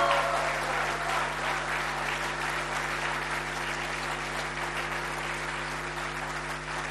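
Audience applauding: dense clapping that is loudest at first and slowly fades.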